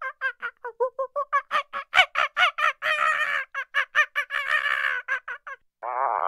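A rapid string of short, high animal calls, about six a second, louder and harsher in the middle. Near the end a different, longer call with a wavering pitch begins.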